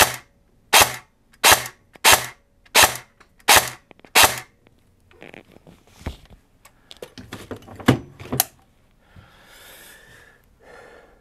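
Cyma SVD airsoft electric gun firing 0.20 g BBs in semi-auto through a chronograph at about 528 FPS: seven sharp shots about 0.7 s apart, finishing a ten-shot string. Softer clicks and knocks follow, with a brief rustle near the end.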